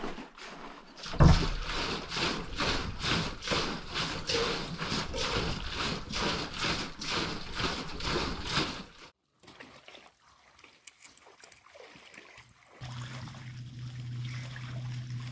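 A metal butter churn hung from ropes and rocked back and forth, the liquid inside sloshing in a steady rhythm of about two to three strokes a second, with one louder thump about a second in. The sloshing stops about nine seconds in.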